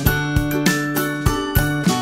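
Upbeat background music with a steady beat, about three strokes a second, under sustained instrument notes.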